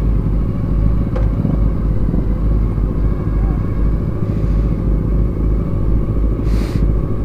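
Motorcycle engines idling steadily at a standstill, a low continuous rumble. A brief hiss rises over it about six and a half seconds in.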